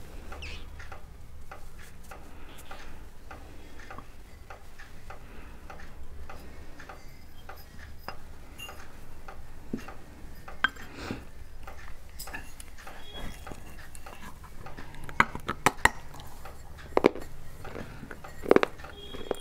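Small unglazed clay pots being handled, picked up, set down and knocked against each other, giving scattered hard clinks and taps. The clinks become sharper and louder in the last few seconds.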